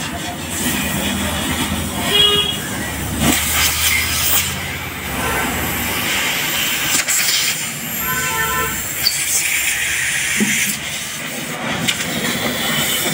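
A hose hissing into a removed Volvo diesel particulate filter as it is cleaned out, with a steady rushing noise. A few brief knocks and short tones sound over it.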